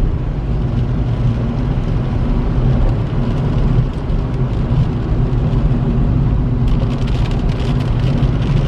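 Steady car cabin noise while driving on a wet road: engine hum under the rumble and hiss of tyres on the wet surface. Water starts spattering on the car about seven seconds in.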